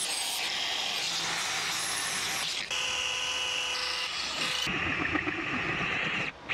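Power tools working metal in quick succession. First an angle grinder cuts metal tube with a steady hiss. From about the middle a cordless drill's motor whines at high speed, then near the end the drill's abrasive attachment scrubs against a small steel part.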